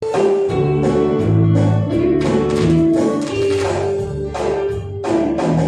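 Acoustic guitar strummed in a steady rhythm, chords ringing under a song.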